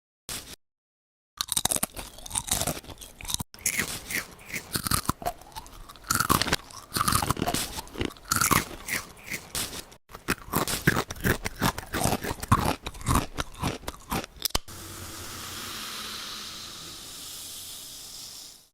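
Close-miked crunching and crackling, dense and irregular, typical of ASMR eating or crunchy-slime play. In the last four seconds it gives way to a steady hiss that stops suddenly.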